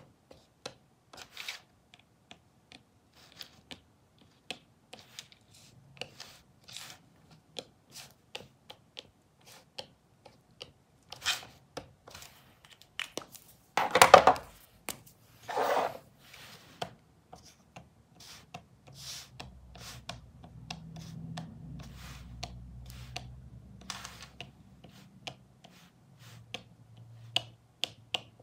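Tip of a Sakura Gelly Roll Soufflé gel pen tapping dots onto thick black cardboard: short light taps, a few a second, at an uneven pace. Two louder knocks come about halfway through.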